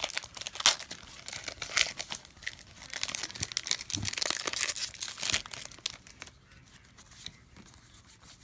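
Foil wrapper of a Pokémon TCG booster pack being torn open and crinkled, a dense crackling that dies down about six seconds in to faint handling.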